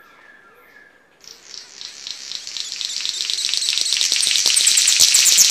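King of Saxony bird-of-paradise singing its rasping song: a rapid rattle of fast ticks that starts about a second in and grows steadily louder.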